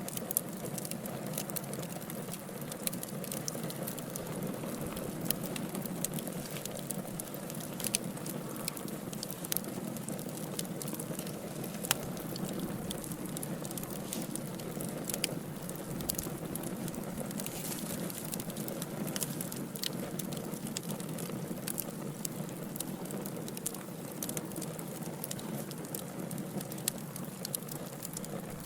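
Wood fire burning in a fireplace, with a steady low rushing of flames and frequent sharp, irregular crackles and pops from the burning logs.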